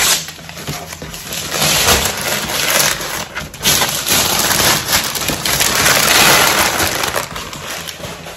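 Printed gift-wrapping paper crinkling and rustling loudly as it is pulled off a cardboard box and crumpled, in uneven surges with no pause.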